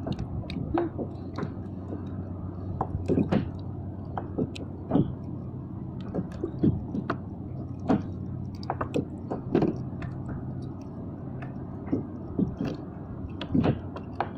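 Irregular small clicks, knocks and wet squishing of hands handling a freshly caught small fish and its hook, over a steady low background.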